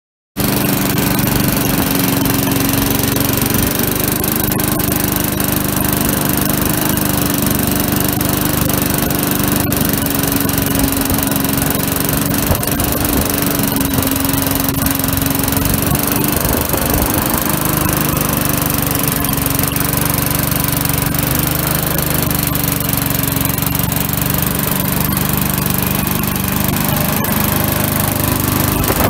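Briggs & Stratton single-cylinder four-stroke engine on an old Beuti-cut push mower running steadily, freshly revived with cleaned points and a newer carburettor.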